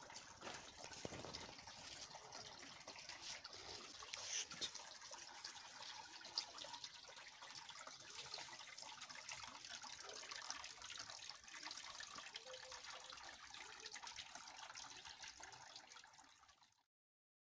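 Small stone cascade fountain trickling water into a garden pond: a faint, steady splashing that stops abruptly near the end.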